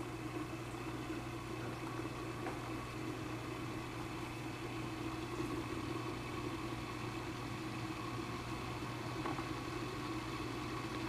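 Vintage Dumore grinder motor, a capacitor-connected single-phase induction motor, running with a steady electrical hum and drone. It turns below full speed because a current-limiting resistor in series holds it to 8 amps.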